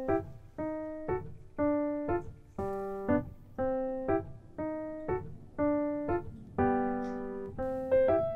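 Background music: a piano playing a slow, evenly paced melody, about two notes a second, each note ringing and fading.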